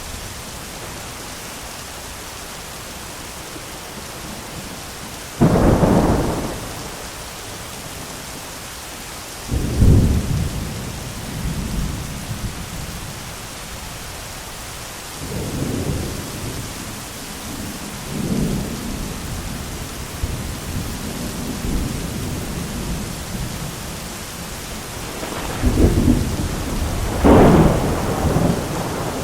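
Thunderstorm: steady rain with repeated thunder. A sudden loud clap comes about five seconds in and another near ten seconds, then softer rolling rumbles through the middle and two more strong peals near the end.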